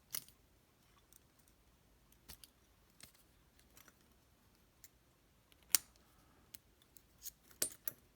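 Scattered small metal clicks and taps from a Zeiss Ikon SK6 lock cylinder being taken apart by hand, its retaining clip being worked off. The sharpest click comes about halfway through, then a quick cluster of clicks near the end.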